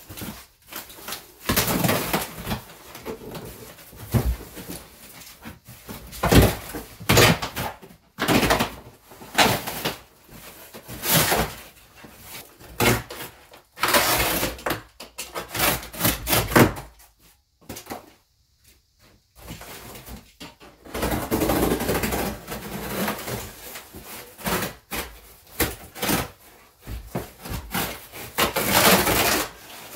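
Stiff cardboard being torn and ripped off the wooden slat frame of an old box spring, in irregular bursts of tearing and rustling with a short pause just past the middle.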